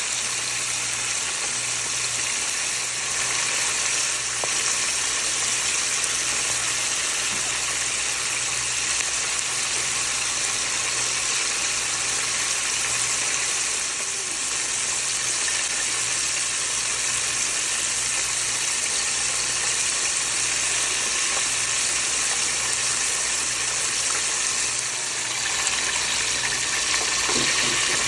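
Floured chicken wings frying in an electric deep fryer's hot oil: a steady, even sizzle.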